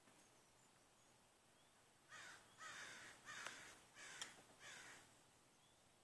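A terrier's excited play vocalizing: five short calls starting about two seconds in, each about half a second long and falling in pitch, with two sharp clicks among them.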